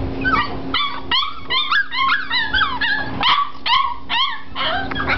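A litter of five-week-old springer spaniel puppies whining and yipping, many short high squeals overlapping one another with hardly a break.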